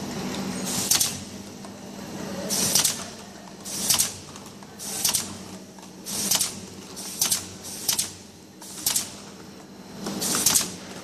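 Automatic top labeling machine running, with a steady motor hum from the conveyor. A short hissing rasp comes roughly once a second, unevenly spaced, as each box passes under the label head and is labeled.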